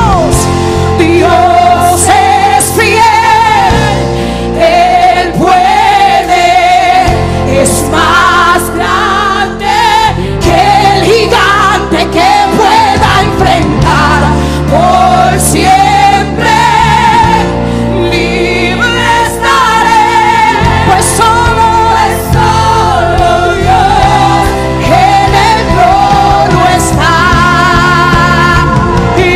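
Live gospel worship music: a woman singing lead with strong vibrato into a microphone over band accompaniment, with the congregation singing along.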